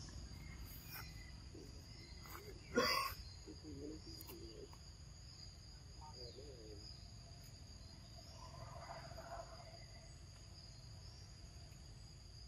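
Steady high insect trilling from crickets or cicadas, with one sharp click about three seconds in and a few faint, short, wavering calls.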